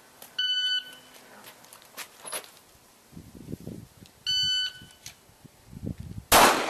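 Electronic shot-timer start beep sounds twice, about four seconds apart. About two seconds after the second beep, a single handgun shot rings out, the loudest sound, followed by a long echo.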